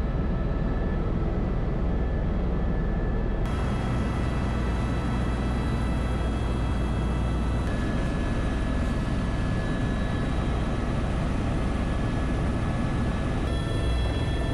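Helicopter turbine and rotor running steadily, heard from inside the cabin: a deep rumble under a steady high whine. The whine shifts in pitch abruptly three times.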